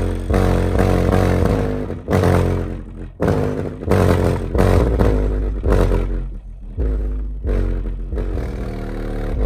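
A Savard HiQ 8 eight-inch subwoofer playing loud bass notes in free air, its cone making long flexing strokes, with short breaks between notes. A buzzing rattle rides on the bass; it is a loose item on the table vibrating, not the subwoofer itself.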